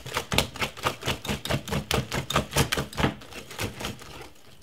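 Wire whisk beating cake batter in a glass mixing bowl to break up the lumps: a quick, even run of clicks, about four or five a second, as the whisk strikes the bowl. The clicks fade and stop near the end.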